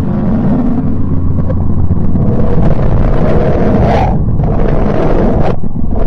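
Space-audio track presented as the sound of the planet Mercury: a deep, noisy rumble like rushing wind. It swells with a hiss about four seconds in and cuts out abruptly near the end.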